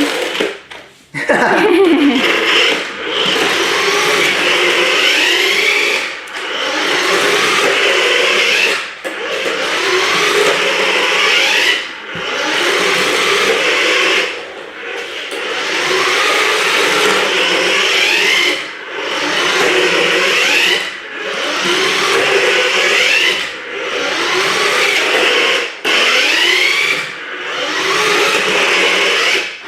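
Small electric motor of a remote-control toy car whirring in repeated bursts, with a rising whine as it speeds up. It cuts out briefly every two to three seconds as the throttle is let off.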